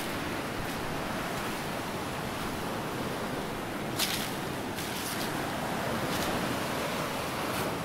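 Surf from a rough sea washing steadily onto the beach, with a few footsteps on coarse sand, the sharpest about four seconds in.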